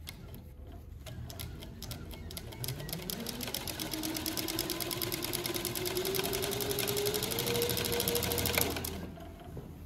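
Juki MS-3580 three-needle chainstitch industrial sewing machine stitching through layered denim. It starts slowly, then its motor whine rises steadily in pitch as it speeds up, with rapid, even needle strokes, and it stops suddenly near the end.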